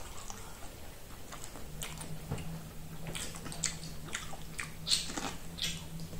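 A person biting kernels off an ear of cooked maize and chewing, with a string of short, irregular crisp snaps as the firm kernels come off the cob.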